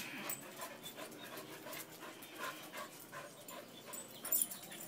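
A dog panting quickly and evenly with its mouth open, hot from exercise and cooling off after a swim. A brief louder sound breaks in near the end.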